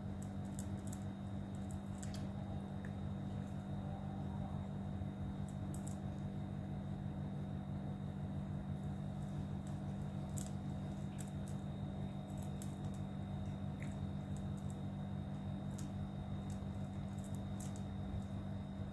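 Several cats crunching dry kibble from stainless steel bowls, many short sharp crunches scattered throughout, over a steady low hum.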